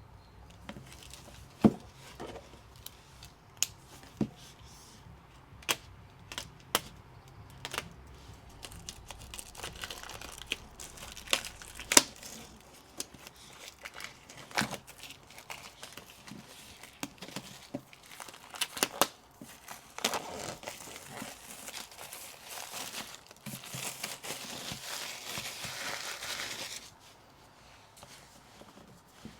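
Packaging being crinkled and torn open by hand, with scattered sharp taps and clicks as items are handled. About two-thirds of the way through comes a longer stretch of steady crinkling and tearing that stops suddenly.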